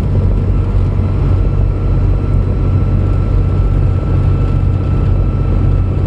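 Semi truck's diesel engine running at a steady low drone at highway speed, heard from inside the cab along with tyre and road noise. A faint steady whine runs above it.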